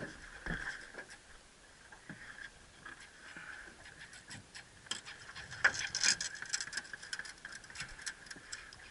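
Baitcasting fishing reel being cranked, its gears ticking in a quick, steady run of clicks as a topwater bait is retrieved; the clicking grows louder and busier about five seconds in.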